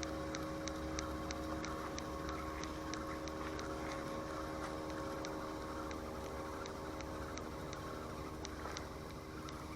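A steady mechanical hum, an engine or motor running at a constant speed, with a quick regular ticking of about three ticks a second over it.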